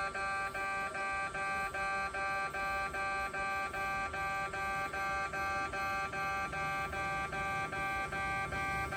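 Japanese railway level-crossing alarm of the electronic 'pe-pe' type, sounding a steady pitched tone repeated about twice a second.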